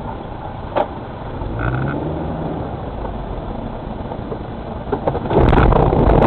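Car engine and road noise heard from inside the cabin, the engine note rising as the car accelerates about two seconds in. Near the end comes a sudden loud, noisy burst with sharp clicks as another vehicle cuts across right in front of the car.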